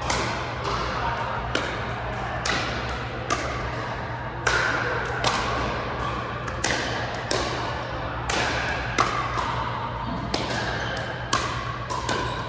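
Pickleball paddles striking the hard plastic ball in a fast back-and-forth rally: a sharp pock about every half second, each ringing on in a large echoing hall, over a steady low hum.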